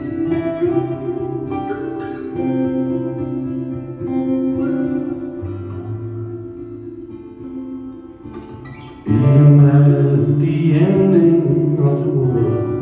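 Live band playing an instrumental passage: picked guitars ringing over a sustained low bass. The music swells suddenly louder about nine seconds in.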